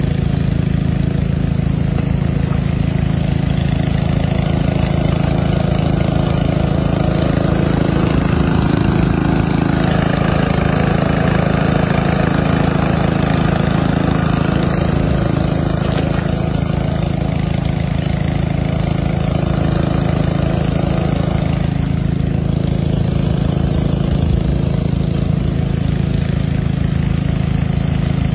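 An engine running steadily at an even speed: a constant, unchanging drone.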